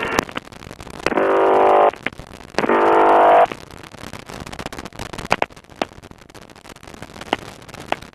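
Aircraft intercom/radio channel keying open twice with no one speaking: two buzzing bursts of cockpit engine and wind noise, each under a second, about a second in and again near three seconds, muffled like radio. Between them the channel carries only faint clicks and crackle.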